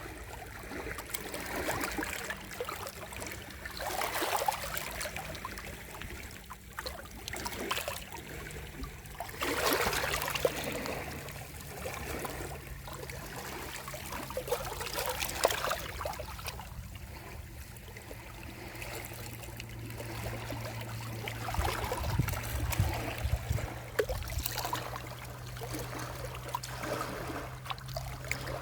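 Sea waves washing in and drawing back, the rush of water swelling and ebbing every few seconds; the biggest surge comes about ten seconds in.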